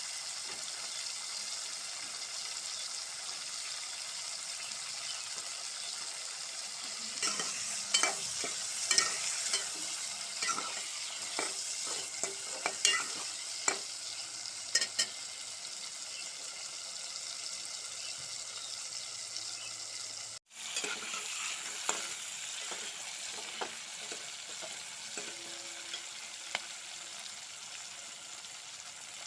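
Chicken curry sizzling in a pan, a steady frying hiss, while a spoon stirs it, scraping and clicking against the pan. The clicks come in a busy run in the middle, then a few more later on.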